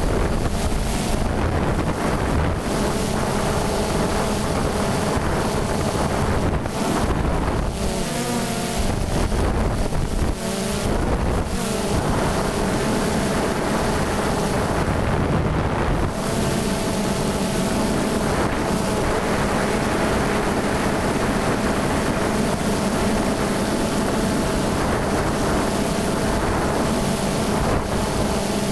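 Multirotor drone's motors and propellers buzzing steadily from close by, with several held tones that waver for a few seconds around a third of the way in as the motor speed changes, over wind noise.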